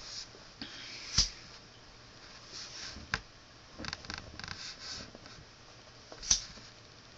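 Disposable lighter being struck: three sharp clicks, about a second in, at about three seconds and near the end, with soft scraping and handling noise between.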